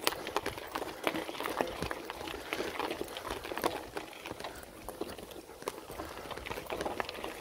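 Mountain bike climbing a dirt trail: tyres crunching over dirt and small stones, with many irregular clicks and rattles from the bike as it goes over bumps.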